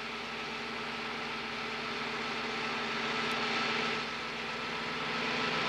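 Truck-mounted spraying machine blasting peat and fertilizer through a hose: an engine runs steadily with a few low hum tones under a strong rushing hiss of the spray, swelling slightly about three and a half seconds in and again near the end.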